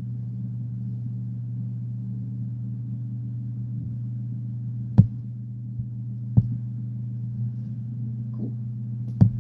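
Steady low hum with a few evenly spaced pitches, broken by sharp clicks about five seconds in, six and a half seconds in, and just before the end.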